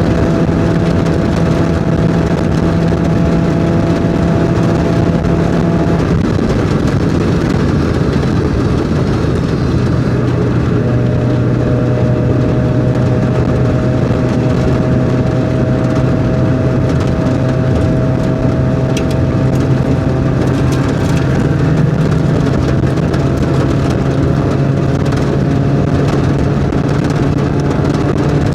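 Mazda Miata's four-cylinder engine running hard at speed, over steady road and wind noise. About six seconds in the engine note changes: it drops, then climbs slowly and steadily as the car pulls through a long stretch in one gear.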